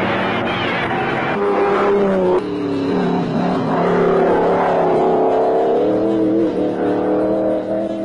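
Several racing car engines running together, their pitch rising and falling as they rev and pass, with an abrupt change in the sound about two seconds in.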